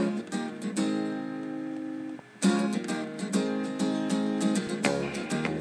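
Background music of a strummed acoustic guitar. A chord rings out for about two seconds, there is a brief pause, then steady rhythmic strumming.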